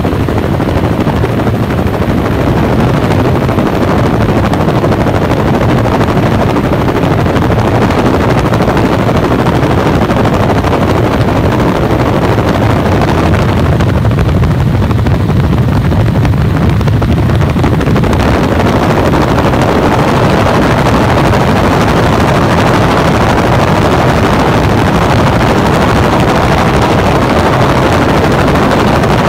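Tour helicopter in flight: loud, steady rotor and engine noise heard from inside the cabin, briefly duller in its middle range about halfway through.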